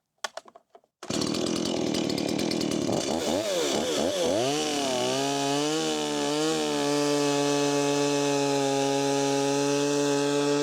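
A few light clicks, then a chainsaw comes in abruptly about a second in and cuts a square crosscut through a wooden beam. Its pitch wavers for a few seconds, then it holds a steady note.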